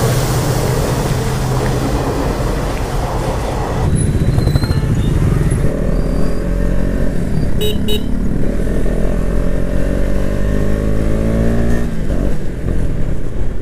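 Motorcycle engine running, then pulling away, its pitch rising steadily for several seconds under acceleration before dropping about twelve seconds in. A brief high beep sounds about eight seconds in.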